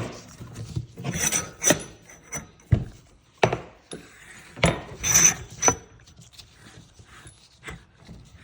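Motorcycle fork parts being handled: several sharp knocks with short scraping and rubbing sounds between them.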